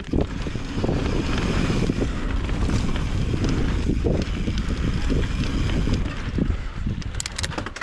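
Wind rushing over the microphone as a mountain bike rolls down a dirt trail, with tyre rumble and scattered rattles and knocks from the bike over rough ground. A quick cluster of clicks comes near the end.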